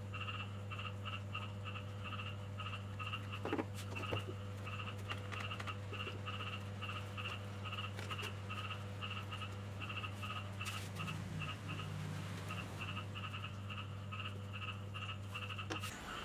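Steady rhythmic animal calling, short chirps repeating about two and a half times a second, over a steady electrical hum. A couple of brief knocks come about three and a half and four seconds in, and the hum cuts off near the end.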